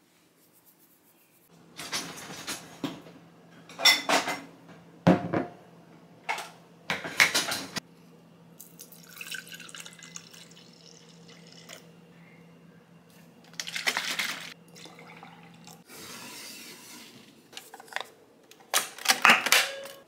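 Kitchen handling sounds: dishes and utensils clinking and knocking several times, with water running in between, over a steady low hum that stops about sixteen seconds in.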